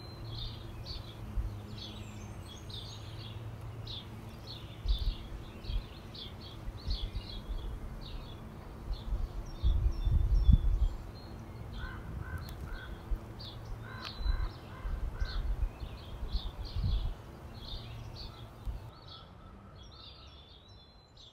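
Many small birds chirping continuously, with a short run of lower repeated calls around the middle and several low rumbles of noise. It all fades out near the end.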